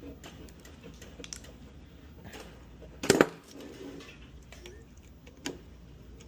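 Scattered small clicks and clinks of wiring parts and hand tools being handled, with one louder clatter about three seconds in.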